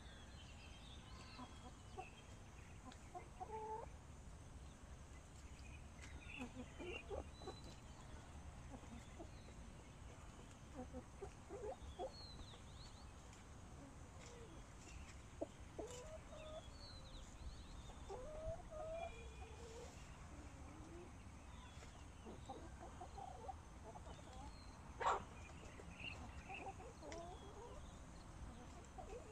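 Sanhuang hens clucking softly, with short calls on and off over a low steady hum. One sharp click near the end is the loudest sound.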